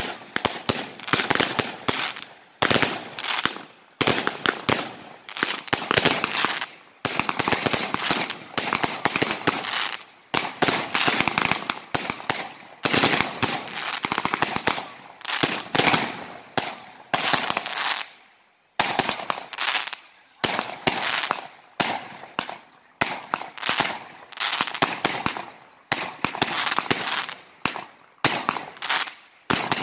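Fireworks going off in a rapid, dense run of bangs and crackling, in bursts one after another with a short lull a little past halfway.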